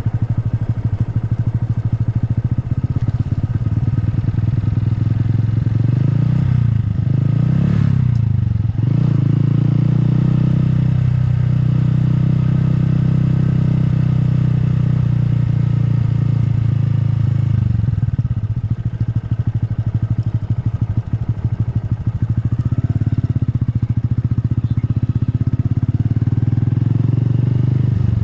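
Honda Grom's 125 cc single-cylinder engine running under way. The revs swing up and back down about seven seconds in, ease off around eighteen seconds, then build again.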